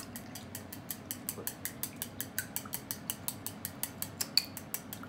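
Chopsticks beating a raw egg in a bowl, clicking against the bowl in a fast, even rhythm of about six or seven strokes a second, with one louder clink a little past four seconds in.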